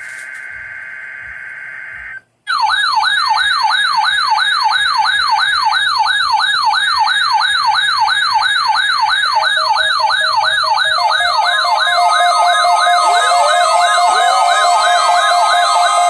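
Weather radio alert: about two seconds of the warbling data tone of the broadcast's SAME header, a short gap, then the 74-102 weather alert receiver's siren alarm, a tone rising and falling about three times a second, with steady alarm tones joining in the last few seconds.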